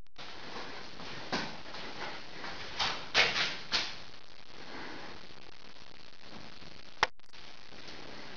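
Steady hiss of an empty room, with a few short soft rustling or shuffling noises in the middle and a single sharp click about seven seconds in.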